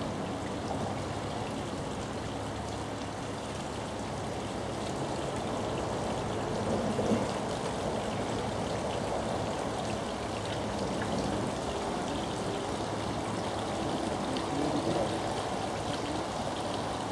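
Water rushing and trickling steadily along the wooden hull of a steam launch under way, with a faint steady hum underneath.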